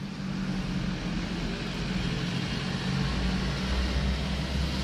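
Box truck driving past on a road: a steady engine and tyre rumble with traffic noise, the low rumble growing stronger about three seconds in.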